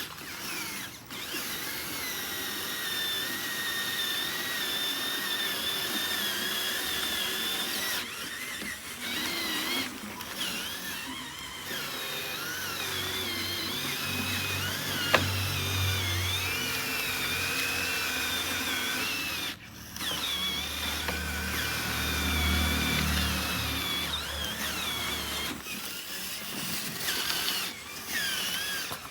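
Small electric motors of radio-controlled construction vehicles whining, with a high pitch that wavers as they work under load. They cut out briefly a few times. A lower hum joins in twice, and there is a single sharp click about halfway through.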